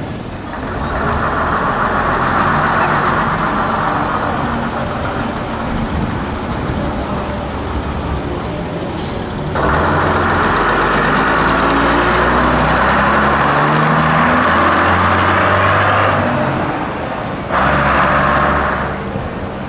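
Vintage bus engines running as buses pull away, the engine note climbing in steps as one gathers speed. The sound gets suddenly louder about ten seconds in and again near the end.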